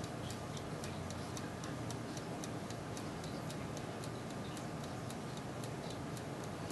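Turbo convection oven running with a steady fan whir, over which pork chop fat sizzles and spits in quick, sharp little ticks and pops, about four a second.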